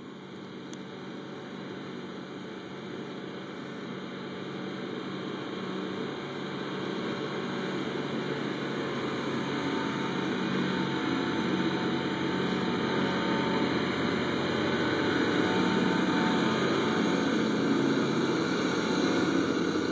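Water truck's diesel engine running as the truck drives up and passes close by, growing steadily louder, over the hiss of its rear spray bar wetting the dirt.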